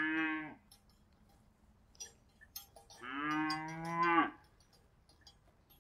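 Cattle mooing: the tail of one moo in the first half second, then a longer moo about three seconds in that rises in pitch at its end. A few faint clicks come between the two moos.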